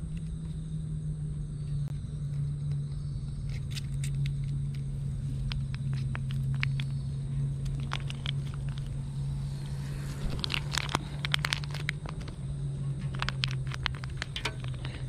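A soft pouch of wet cat food being squeezed and crinkled, with the paté dropping onto a stainless steel tray: scattered small crackles and clicks that bunch up about ten seconds in and again near the end. Under it runs a steady low hum.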